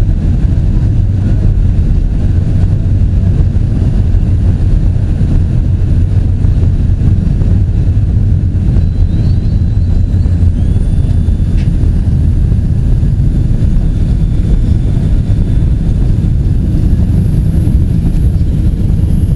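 Boeing 777-200 jet engines running as the airliner lands: a loud, steady low rumble, with a faint high whine coming in about halfway through.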